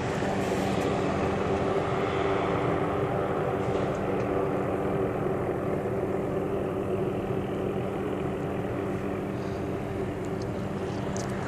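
Helicopter hovering: a steady drone with an even hum that holds without change.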